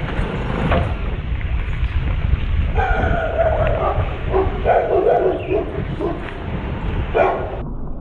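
Wind rumbling on the microphone, with a run of high yelping calls, a dog's by their sound, from about three seconds in, and one more short call near the end.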